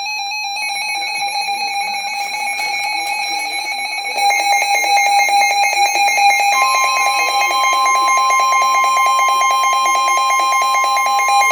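Emergency Alert System alert tones: a steady electronic alarm tone with a fast pulsing pattern, stepping up in loudness about four seconds in, joined a little past halfway by a second, higher steady tone, signalling a severe thunderstorm warning.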